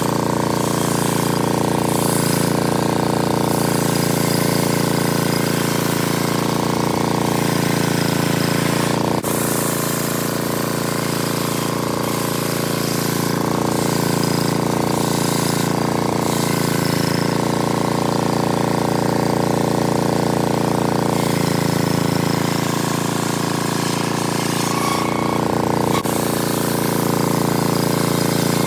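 Large circular sawmill blade ripping lengthwise through a teak log. The saw runs with a steady drone as it cuts continuously, with one sharp click about nine seconds in.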